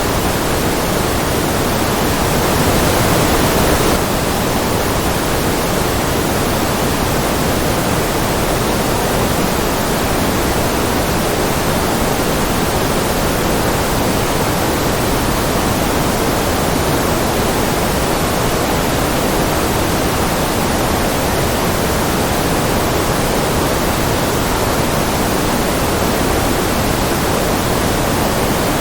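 Steady white-noise track: an even, deep hiss weighted toward the lower-middle range, with no rhythm or events. It swells slightly louder and brighter for a couple of seconds shortly after the start.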